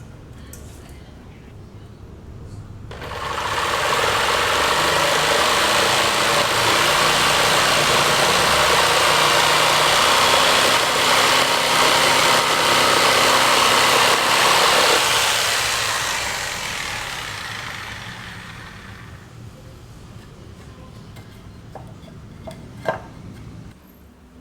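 A loud machine noise starts suddenly about three seconds in, holds steady for roughly twelve seconds, then fades away gradually; a few sharp clicks follow near the end.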